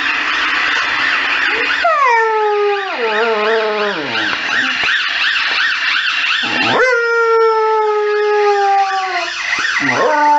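An emergency vehicle siren warbling fast up and down, with a Saluki howling along: two long howls, the first starting about two seconds in and the second just before seven seconds, each sliding down in pitch.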